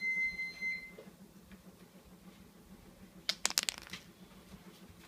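A dog treat dropped onto a hard floor, clattering in a quick run of sharp clicks as it bounces and settles about three seconds in. In the first second a high, steady tone sounds briefly.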